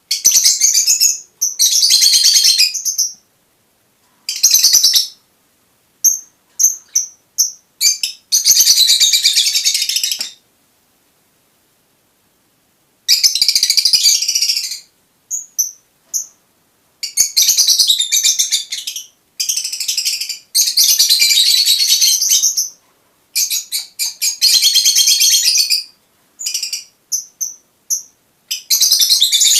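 Fischer's lovebird calling in shrill, high chattering chirps, in bursts of one to a few seconds with short isolated chirps and silent gaps between.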